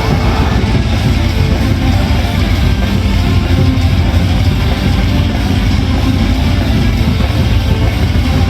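Loud rock-style cheer music playing steadily over the ballpark's sound system.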